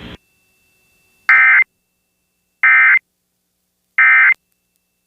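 Emergency Alert System end-of-message tones: three short, identical buzzy digital data bursts, about a third of a second each and evenly spaced, marking the end of the alert broadcast.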